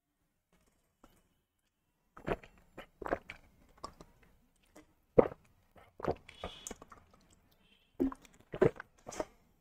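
A man drinking from a plastic water bottle, taking a series of separate gulps and swallows that start about two seconds in, with the plastic bottle crinkling in his hand.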